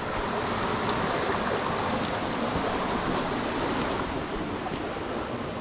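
Steady rush of stream water from a burn and its waterfall.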